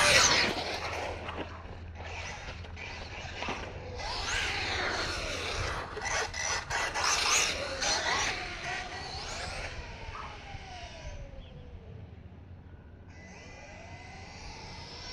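Team Associated Rival MT10 RC monster truck's electric motor whining as it is driven, the pitch rising and falling with each burst of speed as it passes near and away several times. Loudest right at the start and again in the middle, dropping off for a couple of seconds near the end before building again.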